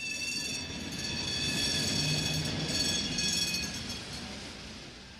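A rail vehicle passing, its wheels giving off steady high squealing tones over a rumbling run that builds to a peak in the middle and then fades away.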